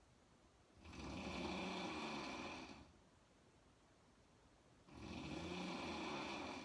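A woman snoring: two long snores about four seconds apart, each lasting about two seconds, with quiet breathing pauses between.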